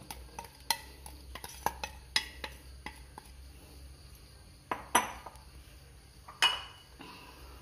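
A steel spoon clinking and scraping against a glass bowl and a steel pot as flour is tipped out, with a run of light taps at first and a few sharper knocks later on.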